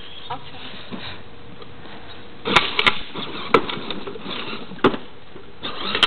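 Plastic Barbie Jeep ride-on toy moving over pavement: a faint steady hum with about five sharp plastic knocks and clatters in the second half.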